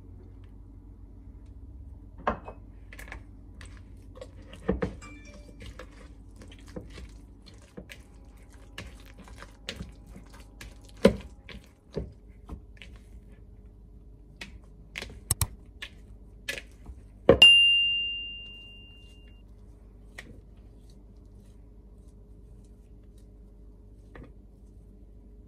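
Scattered knocks and clicks of a silicone spatula and hands working bread dough in a mixing bowl, with one loud clink a little past the middle that rings on as a fading tone for about two seconds.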